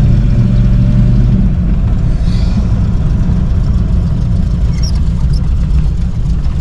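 UAZ off-road vehicle running with a steady, loud, low engine rumble.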